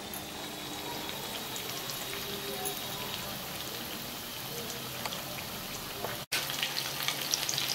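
Sesame-coated paneer pakodas deep-frying in hot oil in a kadhai: a steady sizzle with small crackles. The sound drops out for an instant about six seconds in, then the sizzle comes back a little livelier.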